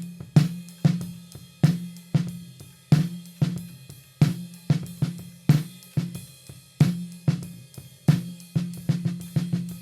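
Snare drum with an Evans UNO G2 head played in a steady pattern: accented strokes about every half second with lighter strokes between, the drum ringing briefly after each hit. It is close-miked and recorded dry, with no EQ or processing.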